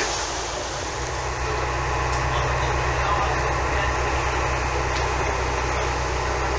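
Motor boat's engine running steadily, a low hum, with water rushing and splashing alongside and wind on top.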